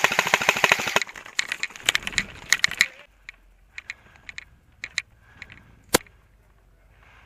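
Airsoft guns firing: a rapid full-auto burst of sharp clicking shots stops about a second in. Scattered single shots follow, with one sharper crack at about six seconds.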